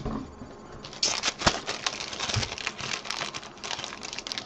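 Hands picking up and handling small hobby brushes and tools on a workbench, close to the microphone: a fast, uneven run of light clicks, taps and rustles starting about a second in.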